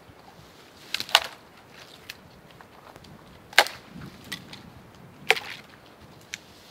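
Dry dead branches snapping off a tree by hand, with sharp wooden cracks: a double crack about a second in, two more single snaps a second or two apart, and a fainter one near the end.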